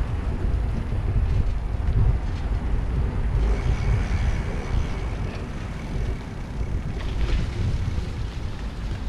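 Wind buffeting the microphone while cycling, a loud uneven low rumble, over the tyre noise of bicycles rolling on a brick-paved path.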